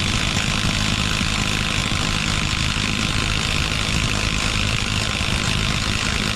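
Cordless impact wrench hammering steadily in reverse against a tightly driven bolt, failing to break it loose; the hammering cuts off near the end.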